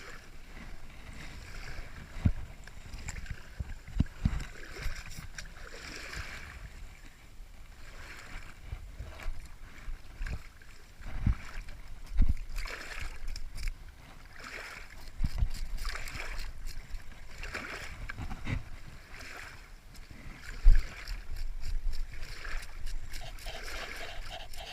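A fish being scaled with a knife: repeated scraping strokes every second or two, with a few sharp knocks and handling thumps.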